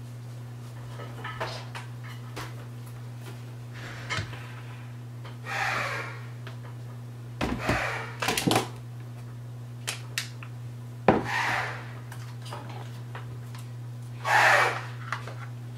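Hands handling a bare hard drive and its cables: bursts of rustling and a few sharp clicks and knocks, over a steady low hum.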